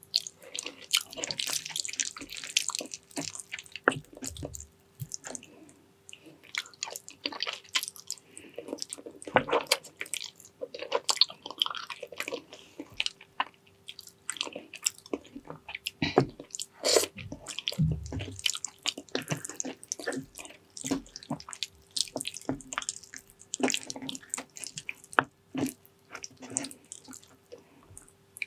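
Close-miked wet chewing and lip smacking of a person eating soft, gelatinous braised pig's trotters, a dense, irregular run of sticky clicks and smacks. A faint steady hum runs underneath.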